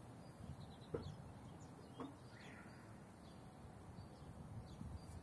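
Quiet outdoor ambience with faint, scattered bird chirps and two soft knocks, about one and two seconds in.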